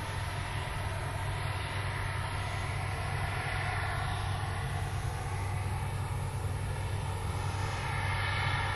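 Harvest machinery running steadily: a low engine drone with a faint whine above it, getting a little louder near the end.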